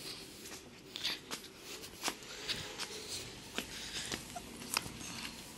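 Footsteps and scuffling on a concrete floor: a string of irregular light taps and scrapes, about one every half-second.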